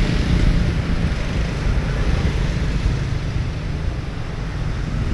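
Steady street traffic, mostly motorbikes passing, with wind rumbling on the microphone.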